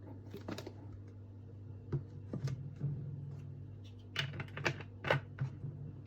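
A series of short clicks and knocks from a glass and juice bottle being handled, over a steady low hum.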